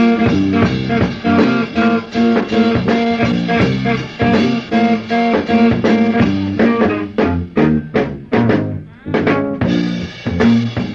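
Live funk band playing an instrumental groove on electric bass, electric guitar and drum kit. About seven seconds in, the groove breaks into short, clipped hits with gaps between them, then the full band comes back in.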